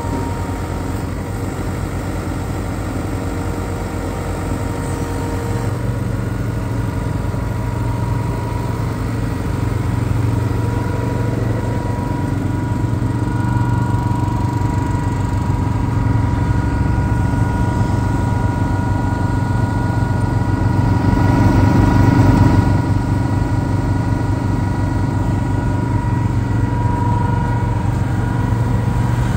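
Kubota M8560 tractor's four-cylinder turbo diesel engine running steadily at idle, with a steady whine above the engine note. It grows louder for a second or two around two-thirds of the way through.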